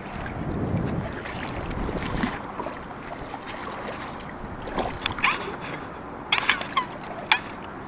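A hooked pike splashing in shallow water at the bank as it is landed by hand, with several short, sharp splashes in the second half. A low wind rumble on the microphone in the first couple of seconds.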